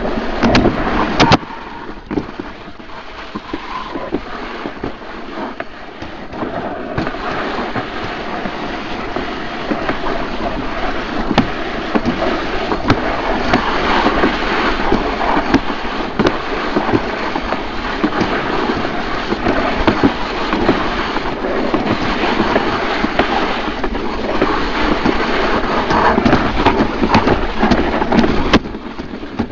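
Summer toboggan sled sliding down a concrete trough run: a continuous rough rumble and scrape of the sled against the channel. A few sharp knocks in the first second or so; the noise grows louder about seven seconds in and drops off near the end.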